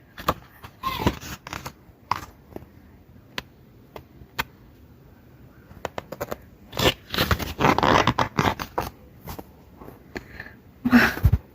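Album photobook pages and inserts being handled: scattered paper clicks and scrapes, with a longer stretch of rustling about seven seconds in.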